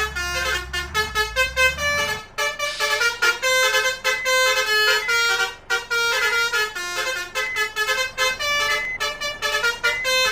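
Basuri musical bus horn ('om telolet' horn) playing a fast melody of short, stepping notes. A low engine rumble underneath stops about two seconds in.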